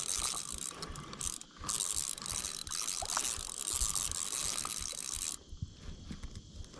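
Fishing reel being cranked to bring in line on a hooked blue catfish: a steady mechanical whir that stops suddenly about five seconds in.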